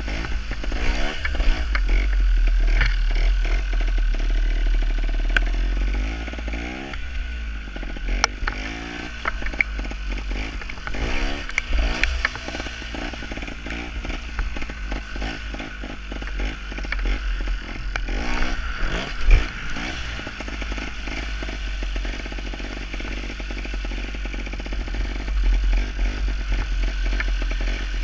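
Gas Gas TXT270 trials motorcycle's two-stroke single-cylinder engine running under load as it is ridden, its pitch rising and falling again and again with the throttle, over a steady low rumble.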